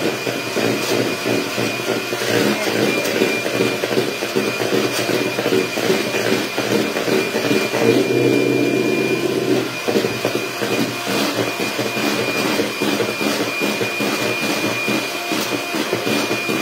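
Handheld electric mixer running steadily, its beaters whipping egg whites for a meringue: a continuous motor hum with a thin high whine.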